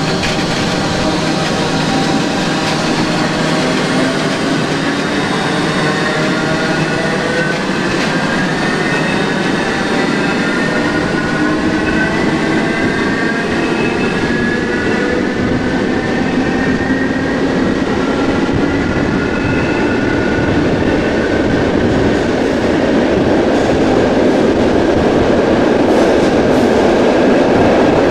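Modernised SNCB AM80 electric multiple unit under way, its traction motors giving a stack of whining tones that slowly rise in pitch as the train gains speed, over a steady rumble of wheels on rail.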